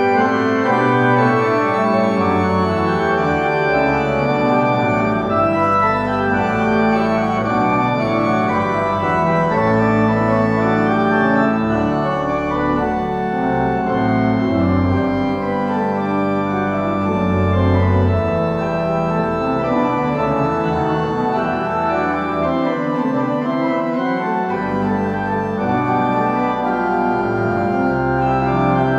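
Goll pipe organ playing a contrapuntal fugue in G major, several voices moving at once over a pedal bass line.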